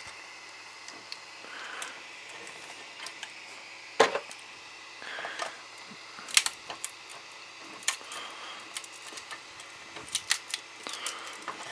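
Scattered sharp plastic clicks and taps, with a couple of soft rustles, as a phone is handled in a 3D-printed plastic clamp mount on a tripod; the clicks come in a cluster near the end.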